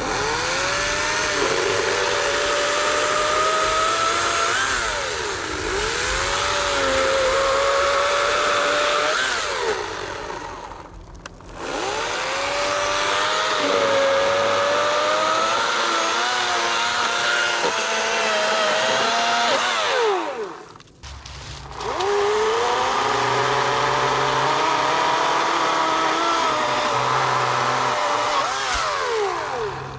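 EGO cordless electric chainsaw cutting through a log: the motor's steady whine sags in pitch as the chain bites into the wood and recovers as it eases. The saw stops twice, about a third and two thirds of the way in, and spins back up with a rising whine each time.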